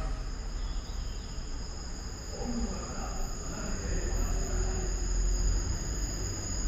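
Station platform ambience: a steady low rumble that swells about four to five seconds in, two steady high-pitched tones, and a faint murmur of voices.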